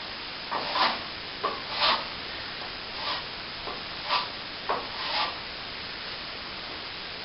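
Short, irregular scraping strokes of a plastering tool working wet corner cement, roughly one a second, stopping a little past halfway.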